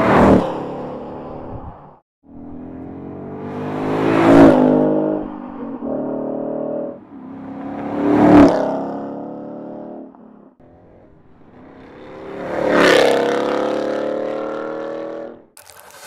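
Four drive-bys of a 2015–2017 Ford Mustang GT's 5.0-litre V8, about four seconds apart, each engine note swelling to a peak as the car passes and then fading. In order they are the stock exhaust, then Borla's Touring, S-Type and ATAK cat-back systems.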